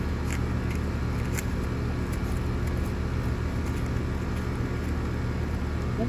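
Outdoor air-conditioning condensing unit running with a steady low hum, with a few faint light clicks in the first second or so.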